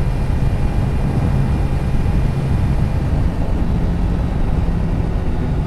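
Triumph Tiger 1050's three-cylinder engine running steadily at expressway cruising speed, mixed with constant wind and road noise.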